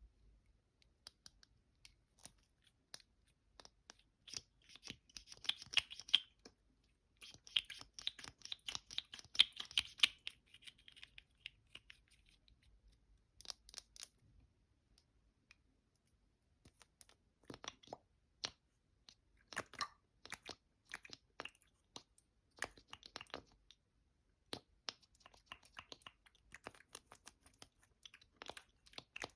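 Close-miked ASMR tapping and scratching on small travel cosmetic containers and their packaging. It starts with two dense stretches of crackling rustle, then sharp taps and short scratchy bursts scattered through the rest.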